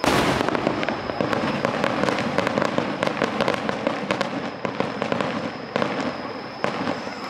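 Aerial fireworks bursting in quick succession: a loud boom right at the start, then a dense run of bangs and crackling.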